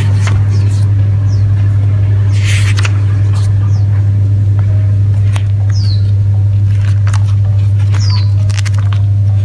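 Manga paperback pages being turned and flipped: paper rustling and small sharp taps over a loud, steady low hum. Short high falling chirps recur about every two seconds.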